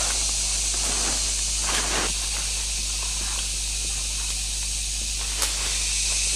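Steady high-pitched hiss of forest insects, with a brief rustle of large leaves and footsteps on dry leaf litter about two seconds in, and a single sharp click near the end.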